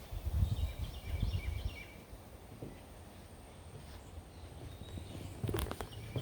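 Outdoor ambience: low rumbling in the first two seconds, like wind on the microphone, with faint bird chirps over it, then a few sharp knocks near the end.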